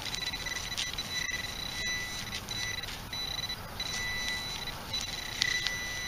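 Metal-detecting pinpointer sounding a steady high beep in on-and-off stretches as its tip is pushed through a plug of dug soil, homing in on a buried iron target. Faint clicks and scrapes of soil come with it.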